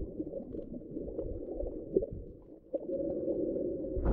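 Muffled underwater sound while snorkeling: a low, rumbling wash of moving water with scattered faint clicks, turning to a steadier low hum about three seconds in.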